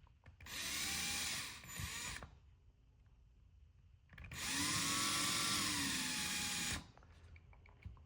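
Small power drill with a 1/16-inch bit running in two bursts, about two and two and a half seconds long, with a whine that sags and recovers a little, drilling a hole through a small plastic part of a TV remote.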